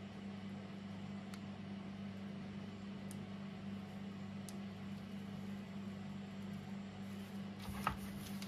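Steady low electrical hum, with a few faint ticks and a short soft rustle near the end.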